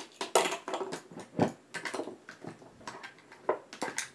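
Small plastic makeup cases and pencils clicking, knocking and rustling together as they are rummaged through by hand: a string of irregular light clicks.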